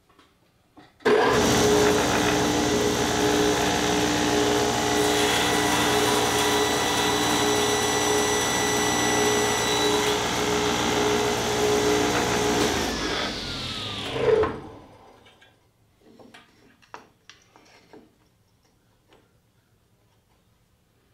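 Table saw switched on and running with a steady whine while a small piece of wood is pushed through the blade along the fence; about thirteen seconds in it is switched off and the blade winds down, its pitch falling away. Light handling clicks follow.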